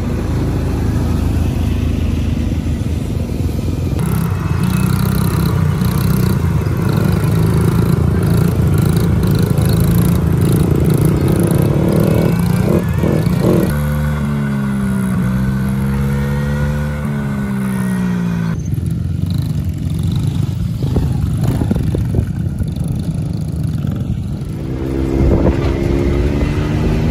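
Small off-road engines running, from children's dirt bikes and a quad and a side-by-side UTV. Between about the middle and two-thirds of the way through, an engine's pitch rises and falls repeatedly as it is throttled and shifted. The sound changes abruptly several times.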